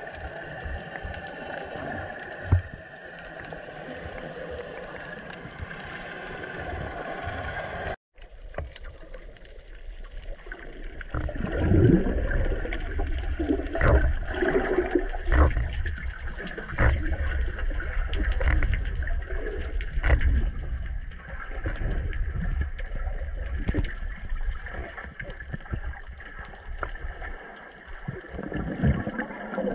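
Muffled underwater noise picked up by an action camera in its waterproof housing. A steady hiss cuts out about a quarter of the way in, and a louder low rumble with irregular knocks follows.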